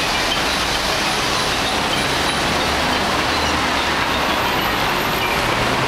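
Steady, unbroken noise of heavy city traffic at a busy road junction.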